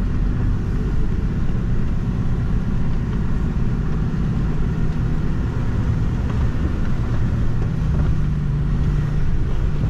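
HGV diesel engine running at low speed as the lorry creeps forward, heard from inside the cab as a steady low rumble.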